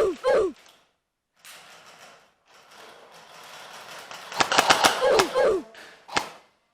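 Airsoft guns firing short rapid bursts: a quick string of sharp pops at the start, a second burst of about six shots about four and a half seconds in, and a single shot near the end.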